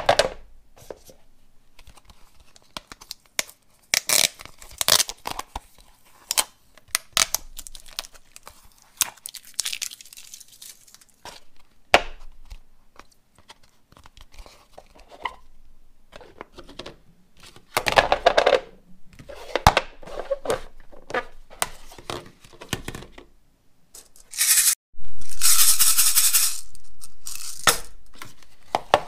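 Toys being handled on a tabletop: an irregular string of clicks, taps, rattles and crinkling or scraping noises. Near the end comes a loud hiss that fades out over about three seconds.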